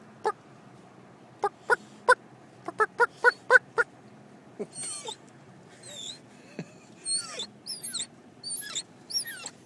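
Wild turkeys calling in short, sharp clucks, with a quick run of them about three seconds in. From about halfway an English setter whines in high, wavering whimpers, excited at the sight of the turkey flock.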